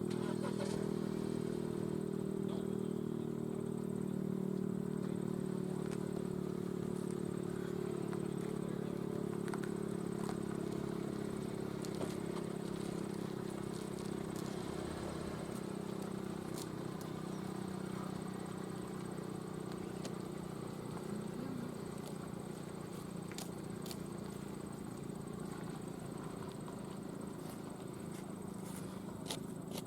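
Federal Signal STH-10 outdoor warning siren sounding a steady low tone during a siren test, gradually getting quieter through the second half.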